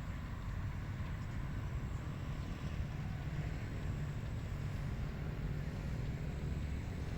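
Steady wind: a low rumble with an even hiss above it, unchanging throughout.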